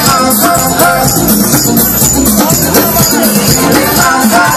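Live band playing loud, up-tempo music on a stage: drum kit and amplified instruments, a quick even high percussion rhythm, and a singing voice.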